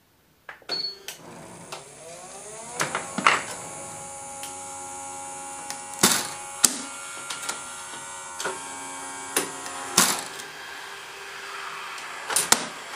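Risograph TR1510 duplicator's mechanism loading a master sheet onto its ink drum. Motors start about half a second in and whirr with a rising whine over the first couple of seconds, then run steadily. About a dozen sharp mechanical clicks and clunks come at uneven intervals, the loudest events, as the master is fed and wrapped around the drum.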